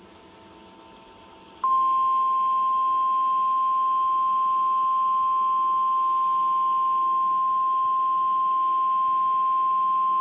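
NOAA Weather Radio's 1050 Hz warning alarm tone: one steady tone that starts about a second and a half in and holds for about nine seconds, the signal that a warning message is about to be broadcast.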